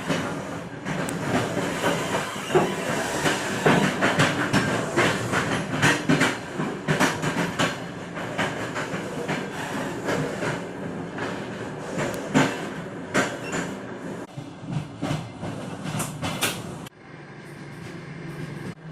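Train wheelsets knocking over rail joints and points, a rapid irregular clatter over a steady hum and hiss. The clicks thin out and the sound drops abruptly near the end.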